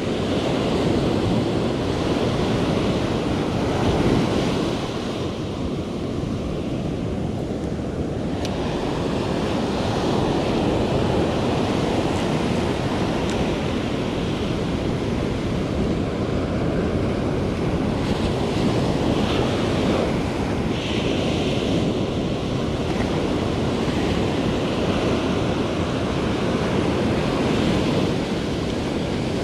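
Ocean surf breaking and washing up the sand in a steady wash, with wind buffeting the microphone.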